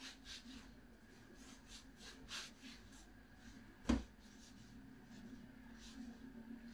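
Faint, soft rubbing of hands rolling baguette dough back and forth on a floured counter, with one sharp tap about four seconds in, over a steady low hum.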